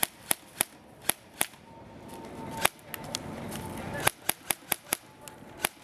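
Airsoft guns firing single shots: a run of sharp cracks, a lull of about two and a half seconds with a single shot in it, then a quicker run of cracks near the end.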